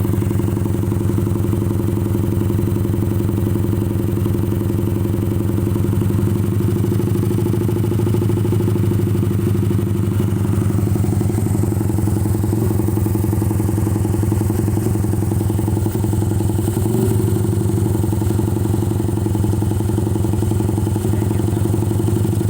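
Honda TMX 155 motorcycle's single-cylinder four-stroke engine idling steadily, its exhaust pulses even, with a brief slight change about 17 seconds in.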